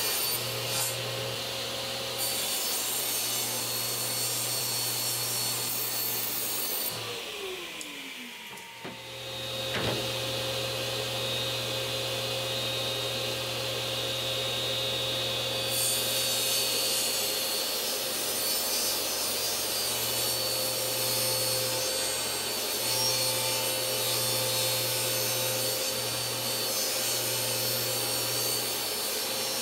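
Table saw running and cutting 3/4-inch plywood panels. About seven seconds in the motor winds down with a falling pitch; about ten seconds in it starts up again and runs steadily through further cuts.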